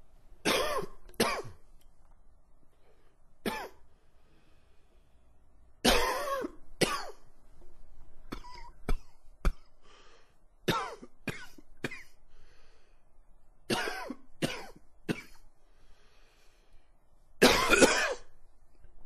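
A man coughing repeatedly, in short bouts of two or three coughs with pauses between them, and one longer cough near the end.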